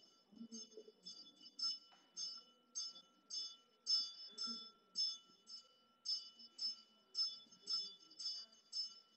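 Small metal hand bell rung steadily, about two or three strokes a second, each stroke ringing on with the same high bright tones.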